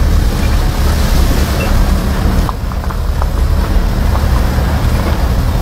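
Vehicle driving slowly on a rough dirt and gravel track: a steady, loud low rumble of engine and tyres, with a few light clicks a little past halfway.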